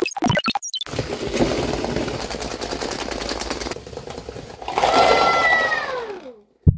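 Small geared motors of a WhalesBot building-block robot whirring with fast fine clicking. About five seconds in comes a louder burst with a tone that falls in pitch, as a tower of plastic cups is knocked over. A single thump comes right at the end.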